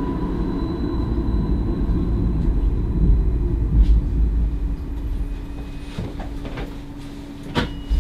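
Stadler Variobahn tram heard from the driver's cab as it slows to a stop: running rumble with a falling motor whine, giving way about halfway through to a steady hum from the standing tram. A sharp click comes near the end.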